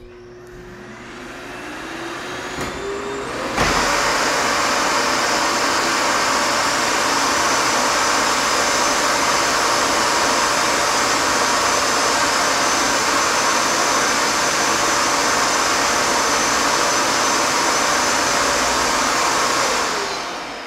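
LG A9TS vacuum motor spinning up with a rising whine, cutting in to full loud suction about three and a half seconds in, and running steadily. Near the end it winds down, its pitch falling.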